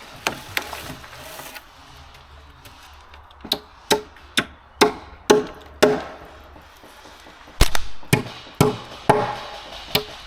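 Airsoft PP2k gas blowback SMG firing semi-automatic single shots: a couple of faint cracks at first, then a steady string of sharp shots about two a second, pausing briefly midway before resuming.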